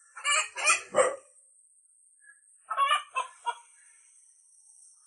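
Chickens clucking in short bursts: a few calls just after the start, then four quick ones about three seconds in.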